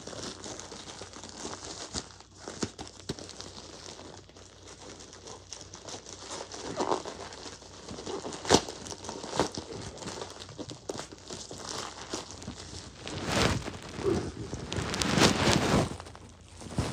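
Mailing envelope being opened by hand: crinkling and rustling of the packaging with scattered sharp clicks, busier and louder in the last few seconds.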